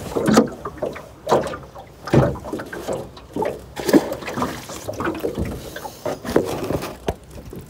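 Irregular knocks, bumps and rustles of close handling, with some water sounds, while a freshly caught fish is dealt with on a small boat.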